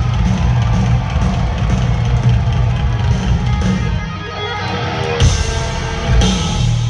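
Live glam metal band playing loud and heavy, electric guitar and bass over drums, with two cymbal crashes about five and six seconds in.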